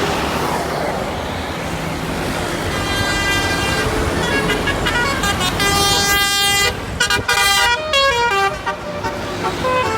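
Bus telolet horn of the Basuri type, a multi-tone air horn, playing a stepping tune of notes over a low engine and traffic rumble. The tune starts about three seconds in, is loudest in the middle with short breaks, and runs down the scale near the end.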